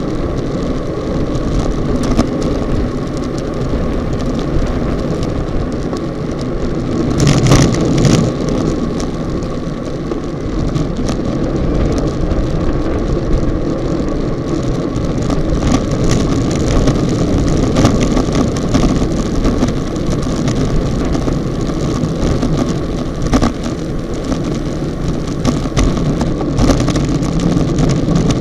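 Wind rushing over the microphone of an action camera carried on a road bike in a fast-moving racing bunch, with road rumble and rattling clicks from the loosely mounted camera. A louder burst of noise comes about seven seconds in.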